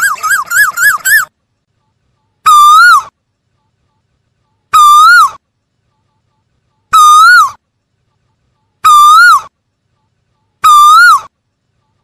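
Asian koel calling: a quick run of short rising notes, then a single loud call that rises and falls, repeated five times about every two seconds.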